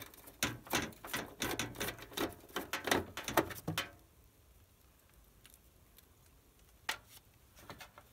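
Screws and a screwdriver clicking and rattling against the RV furnace's access cover as it is screwed back on: a dense run of clicks for about four seconds, then two single clicks near the end.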